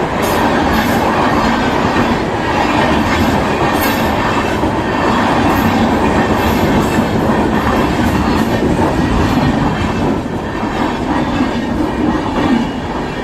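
Durg–Ajmer Express passenger train rolling, with steady wheel rumble and clatter of the coaches over the rails, easing a little in the last few seconds.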